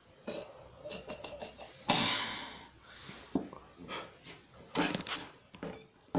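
Handling noise: soft rustles, knocks and clicks as plush toys and the camera are moved about on a cloth-covered table, with a breathy burst about two seconds in.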